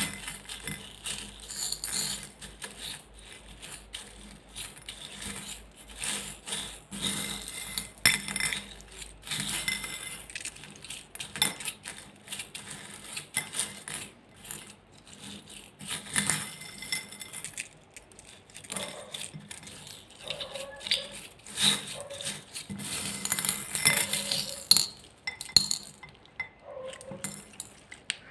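Glossy slime being mixed by hand with water beads in a glass bowl: irregular clinks and taps of the beads against the glass, mixed with wet squishing of the slime.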